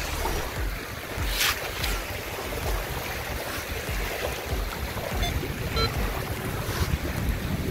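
Wind rumbling on the microphone over the wash of small waves, with two short rushing bursts about a second and a half and two seconds in.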